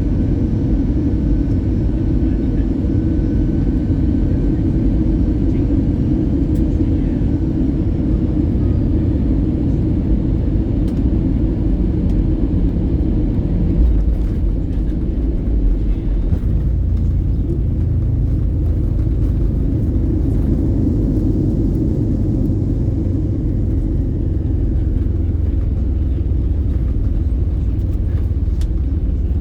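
Cabin noise inside an Airbus A320 during landing: a loud, steady low rumble of engines and rushing air. It grows heavier in the deepest range from about halfway through.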